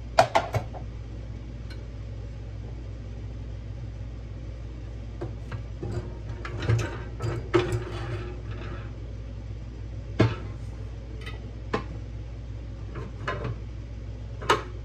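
Metal clanks and knocks as a steel mold is worked out of a bottle-jack shop press and set down on a metal tray: a few sharp knocks right at the start, a clatter of knocks in the middle, and single knocks later, over a steady low hum.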